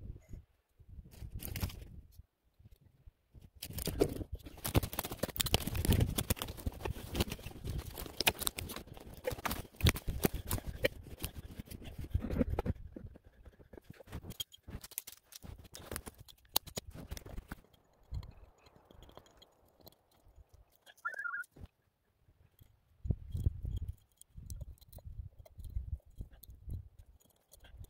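Crunching and rustling of someone moving in snow and handling gear, dense for several seconds and then sparser. Near the end there is light scraping of a hatchet blade against spruce bark to collect sap.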